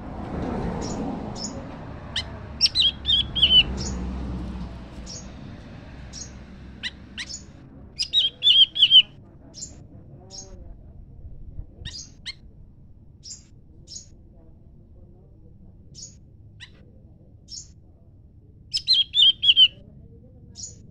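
Small songbirds calling back and forth: three short, rapid, falling trills, about two seconds in, at eight seconds and near the end, with single sharp high chip notes scattered between them.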